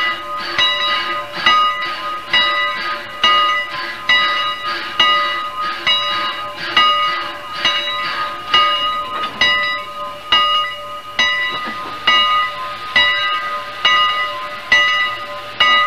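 Locomotive bell ringing steadily, about one stroke a second, each stroke ringing on before the next.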